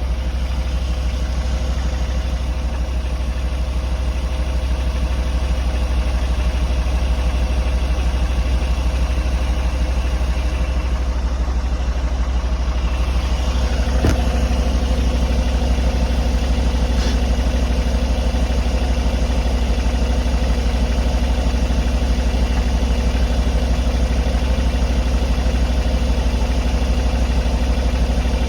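Mercedes M278 V8 engine idling with a rapid, steady knocking that the owner cannot account for. A sharp click about halfway through, and a steady low tone joins the running at about the same time.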